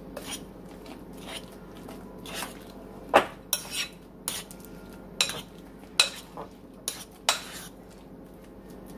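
A spoon scraping and knocking against a bowl in irregular strokes as sliced strawberries and whipped topping are stirred together.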